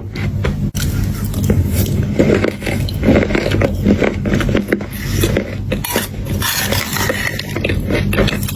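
Close-miked eating sounds: crunchy chocolate chunks being bitten and chewed, a dense run of crunches over a steady low hum.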